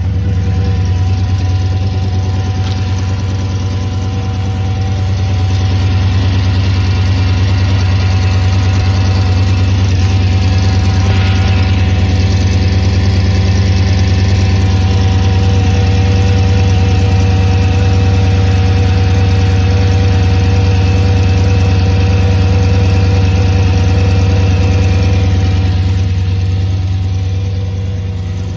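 Audi S8 D3's 5.2 V10 engine idling steadily on a cold start, with the noise the owner takes for an exhaust leak, which goes away once the engine warms up.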